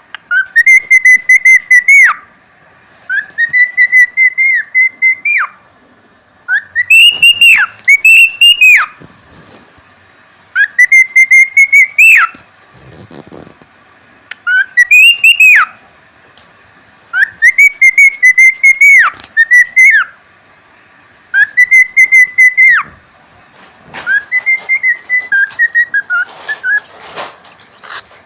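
Cockatiel whistling a repeated song phrase, about ten times with short gaps: each phrase rises, holds a fluttering note and drops off at the end, and the last one steps down in pitch.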